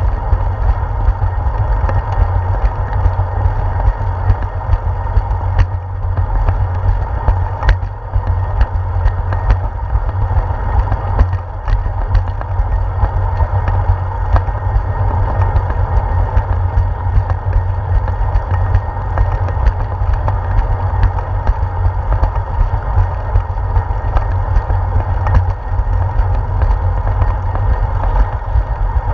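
Riding noise of a bicycle on a concrete path, picked up by a handlebar-mounted GoPro Hero 4: a steady low rumble of wind and tyre vibration, with a few light clicks and rattles now and then.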